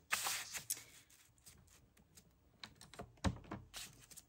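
Paper being slid and positioned on a plastic paper trimmer: faint rustling with a few light clicks and taps, the sharpest about three seconds in.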